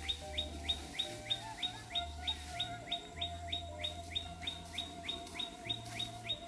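A bird calling over and over, a short high chirp that falls in pitch, about three times a second, with background music and its low bass notes underneath.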